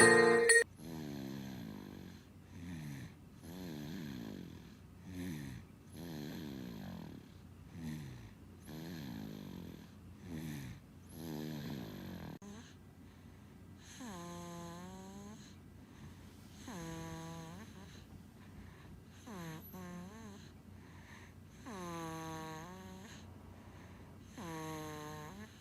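An eight-month-old baby snoring in her sleep. Short snores come about once a second for the first half, then longer, squeakier snores that dip and rise in pitch come about every two and a half seconds.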